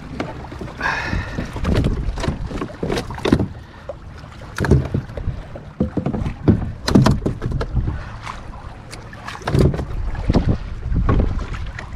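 Scattered knocks and clunks of a landing net and fishing gear being handled against a plastic kayak, over a low wind rumble on the microphone.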